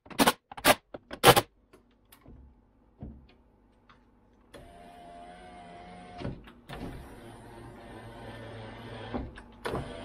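Three short bursts from a cordless drill-driver tightening the door handle's fasteners in the first second and a half. From about four and a half seconds in, the 2012 Nissan Rogue's power window motor runs steadily with a faint wavering whine, with a couple of knocks around six to seven seconds and again near the end.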